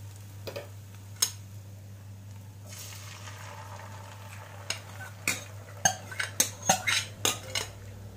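Egg batter poured into a hot oiled non-stick frying pan, sizzling from about three seconds in. A quick run of sharp clinks and scrapes follows as the last of the batter is scraped from the bowl into the pan.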